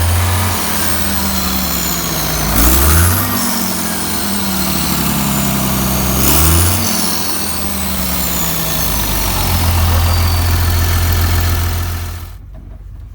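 Ural truck's turbocharged diesel engine idling and revved twice, a high turbo whistle rising with each rev and slowly falling away after it: a boost-air leak at the turbocharger's outlet pipe is suspected. The engine stops near the end.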